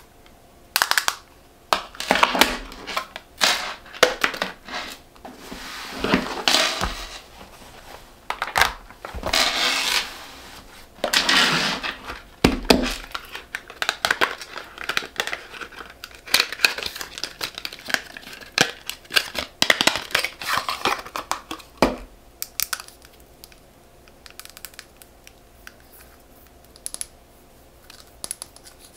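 Hands handling and unpacking makeup packaging: a plastic palette compact turned over, then a cardboard foundation box opened and the bottle drawn out, with rustling, crinkling of card and paper and sharp clicks and taps of plastic. The handling comes in dense bursts for most of the time, then thins out to occasional light taps near the end.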